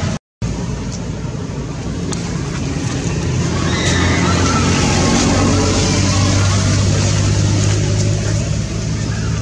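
A motor running close by: a steady low hum over outdoor background noise. It cuts out briefly just after the start.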